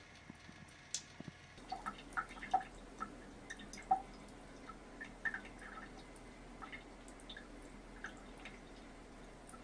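Thin stream of tap water trickling and dripping into a ceramic bathroom sink, with irregular small plinks and splashes as cats paw at the stream, busiest in the first few seconds and sparser after.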